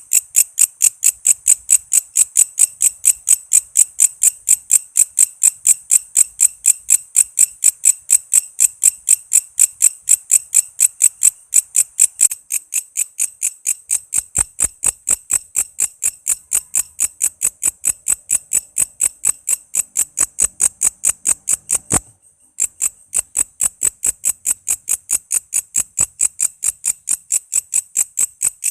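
Walang kece, a singing insect, calling in a fast, very even series of shrill high-pitched pulses, about four a second. The calling stops for half a second about 22 seconds in, then picks up again.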